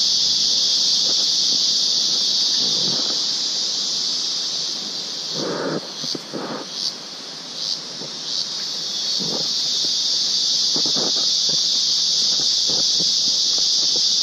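Loud, steady, high-pitched drone of calling insects. Midway it dips and breaks into four short pulses before resuming at full strength. Irregular footsteps on the trail sound beneath it.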